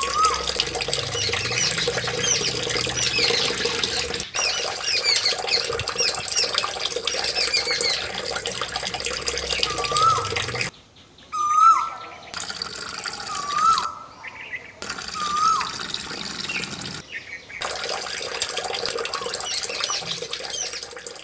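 Water running steadily with many birds chirping over it. A short rising-and-falling call repeats several times in the second half. The sound cuts out abruptly for moments a few times near the middle and later.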